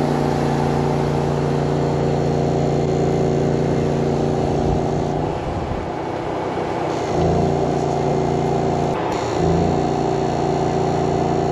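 Engine running steadily on an electrofishing boat, holding an even pitch. The sound dips and shifts twice, about five to seven seconds in and again just after nine seconds.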